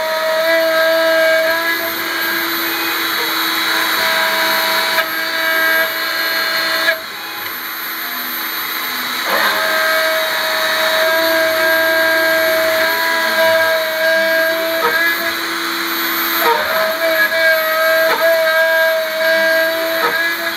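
Isel CNC gantry milling machine cutting aluminium: the spindle's steady whine over the chattering noise of the milling cutter in the metal. The main tone breaks off for about two seconds roughly a third of the way in and then comes back, with a few short clicks near the end.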